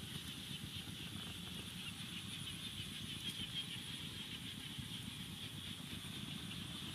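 Open wood fire burning under a foil-wrapped chicken, with faint crackles over a low steady rustle and a constant high hiss.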